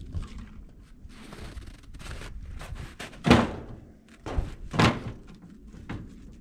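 Split firewood being pulled off a stack and dropped into an IBC tote cage, pieces knocking on wood. One loud knock about halfway through, then two more within the next second and a half, with lighter clatter in between.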